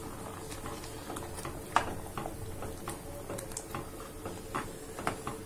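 A metal ladle stirring thick sambar in a pan, giving irregular light clinks and scrapes against the pan, with one sharper knock nearly two seconds in.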